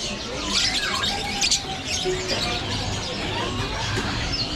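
Many caged birds chirping and squawking together in a dense, overlapping chorus of short high calls.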